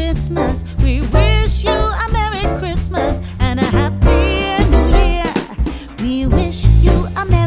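Pop song with a sung vocal line over a heavy bass beat.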